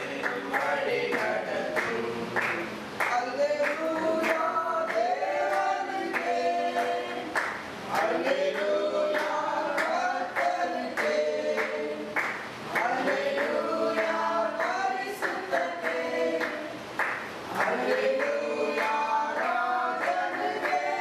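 A small congregation singing a worship song together, with steady hand-clapping in time.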